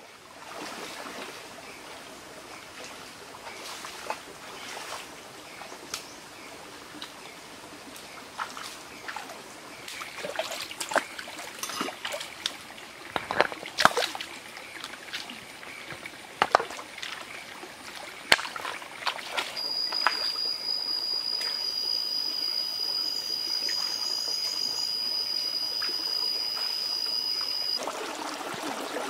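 Shallow stream trickling over rocks, with intermittent splashes and knocks as hands work in the water, busiest in the middle. About twenty seconds in, a steady high-pitched whine starts and cuts off near the end.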